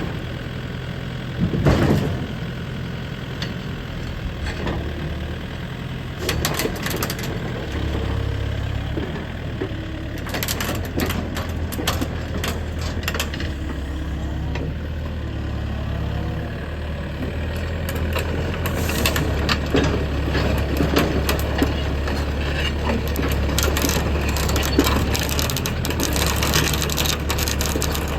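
Sany SY95C excavator's diesel engine running, working harder from about eight seconds in, with many short metallic clicks and clanks over it.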